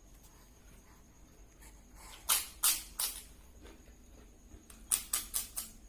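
Eating sounds of someone eating fried rice: short sharp clicks and smacks, three a little past two seconds in and a quicker run of about five near the end.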